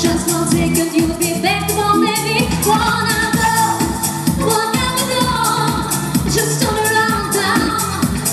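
A live pop song: women singing into microphones over keyboard and electronic backing with a steady dance beat.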